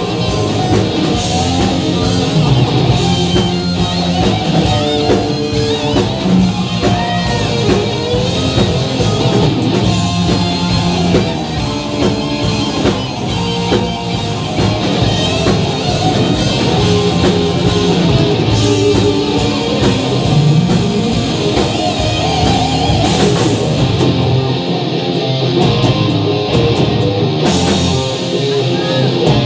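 Live rock band playing heavy metal, loud: electric guitars, bass guitar and a drum kit.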